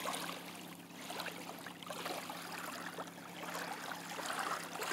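Small wavelets washing in over sand at the water's edge as the tide comes in: a faint, even wash of water with small scattered ticks.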